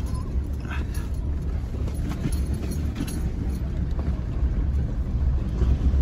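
A car driving slowly over a dirt ground, heard from inside the cabin: a steady low rumble of engine and tyres.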